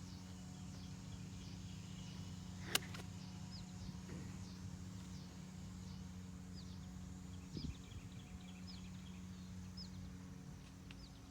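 One sharp crack about three seconds in, a golf club striking a ball, over a steady low hum, with birds chirping in short repeated downward calls through the rest of the stretch.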